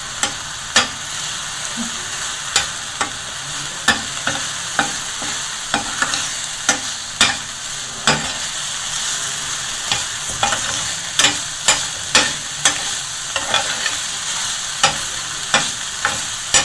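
Small pieces of chicken sizzling in a stainless-steel frying pan while a spoon stirs them, scraping and clicking against the pan about once or twice a second. The chicken is being fried dry in its own juices with black pepper.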